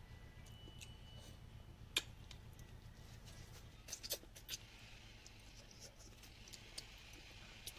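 Eating a meal of rice and chicken curry: quiet chewing and mouth sounds, with a few sharp clicks, the loudest about two seconds in and a quick cluster around four seconds, over a steady low hum.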